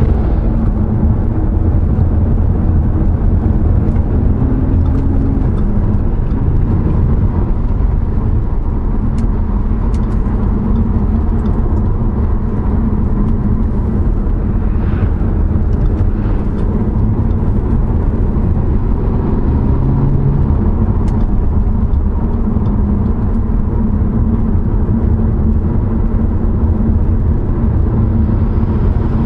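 Steady engine drone and tyre and road rumble inside a car's cabin while driving along a highway, here climbing a steep grade.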